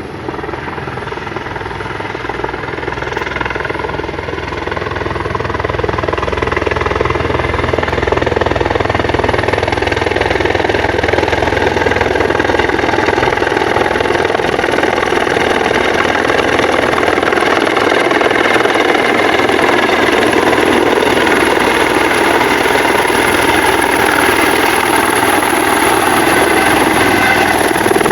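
Helicopter running close by: a rapid rotor chop under a high turbine whine. It grows louder over the first six seconds or so, then holds steady.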